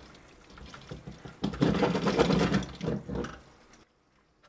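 A liquid-filled Cooler Master MasterLiquid 240 radiator and its hoses shaken rapidly by hand, a fast, dense rattle that grows louder about a second and a half in and stops suddenly near the end. The loop is completely full: no air bubbles can be heard moving inside.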